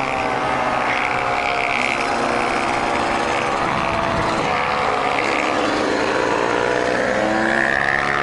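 Kawasaki KX100 two-stroke dirt bike engine running under throttle while riding, with wind rush over it. The engine pitch sags through the middle and climbs again toward the end.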